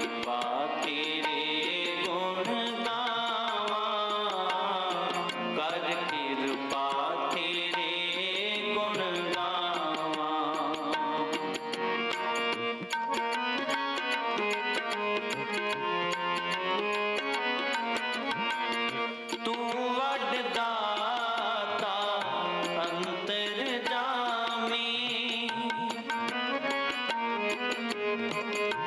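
Background music in an Indian style, with a gliding melodic line over steady tabla-like percussion.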